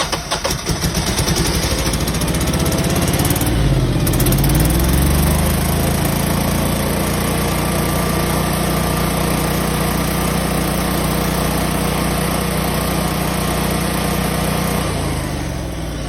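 Generac standby generator engine cranking slowly and catching within about the first second, then taking a few seconds to ramp up before settling into a steady run; it slows near the end. The slow crank and delayed ramp-up are, to the technician, possibly a weak battery or a valve a little too tight.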